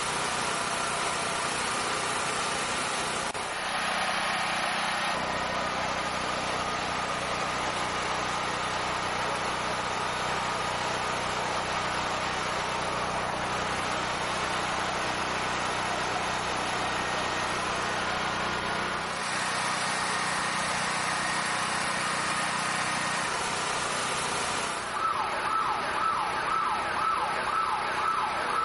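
Steady, dense noise with a few held tones, then, about 25 seconds in, a fast yelping siren starts, sweeping up and down several times a second.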